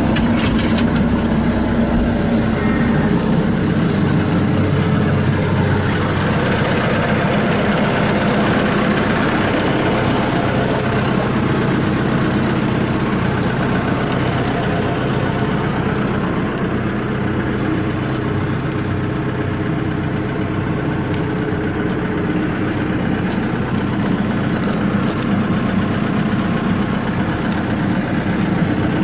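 Caterpillar 436B backhoe loader's diesel engine running steadily at idle, its note shifting a few times, with faint light ticks.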